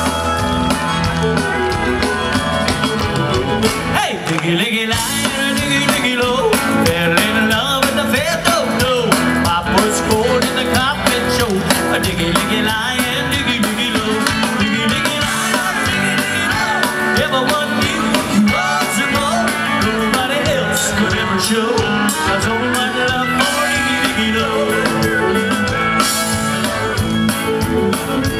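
Live country band music: fiddle, electric guitars and a drum kit keep a steady beat, with a man singing into a microphone over the amplified band.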